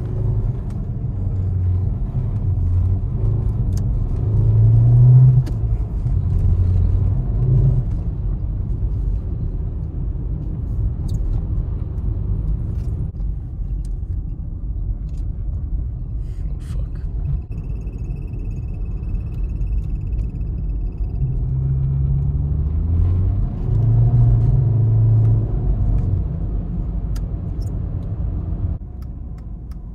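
Mercedes-Benz 200TE (S124) four-cylinder petrol engine and tyre rumble heard from inside the cabin while driving on a snowy road. The engine note swells under throttle a few seconds in and again after about twenty seconds, then the sound drops off near the end as the car eases off.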